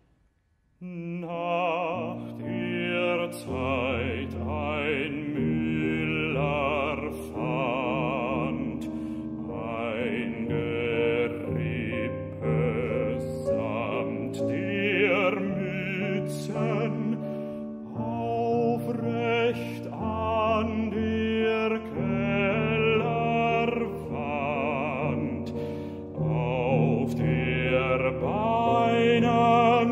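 A baritone singing an art song with wide operatic vibrato, accompanied by a Bösendorfer grand piano. Voice and piano come in together about a second in, after a brief silence.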